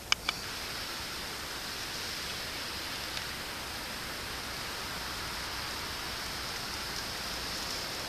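Two last quick, ringing metallic scrapes of a knife spine on a fire steel, then a steady, even hiss.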